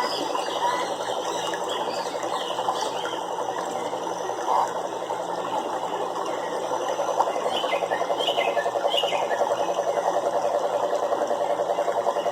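A chorus of frogs calling: a dense, rapid pulsing trill that becomes steadier and louder in the second half, with a few short high chirps over it just past the middle.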